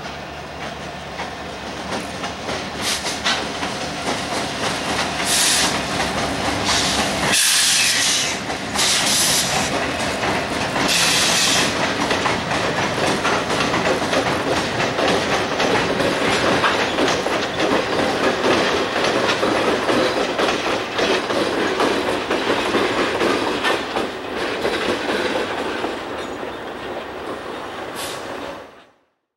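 Canadian Pacific diesel locomotives running light across a steel overpass bridge, engines running and wheels clacking over the rails. They grow louder as they come onto the bridge and ease off as they move away. Several short high-pitched bursts come a few seconds in.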